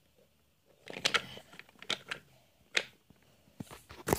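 Toy trains and wooden railway track being handled: a few scattered sharp clicks and knocks of wood and plastic, with a brief rustle about a second in.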